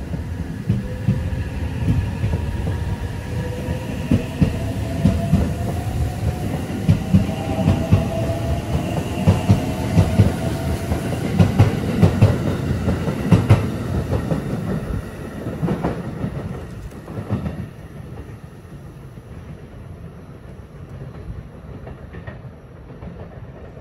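JR 683 series limited-express electric train pulling out of the station. Its motor whine rises in pitch as it accelerates, and the wheels clack over the rail joints faster and faster. The sound fades away over the last several seconds as the train leaves.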